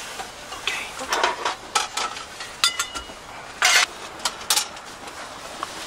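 Stainless steel cookware, cups and utensils being handled on a camp table: scattered clicks and knocks, one short ringing metal clink, and a brief louder rattle a little past the middle.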